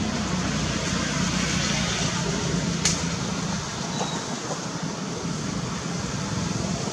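A motor vehicle's engine running steadily close by, a low rough hum over a steady noise, with one sharp click about three seconds in.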